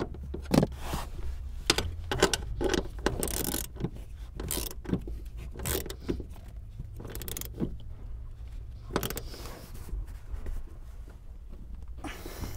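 Ratchet with a 14 mm socket clicking in irregular runs of short strokes as the seat's mounting bolt is tightened down, over a low steady hum.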